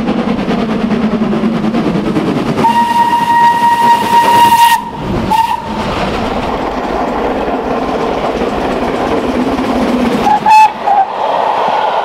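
Steam locomotive running, with a steady rush of rail and exhaust noise. Its whistle gives a long single-note blast about three seconds in, a brief toot just after it, and two short toots about ten and a half seconds in.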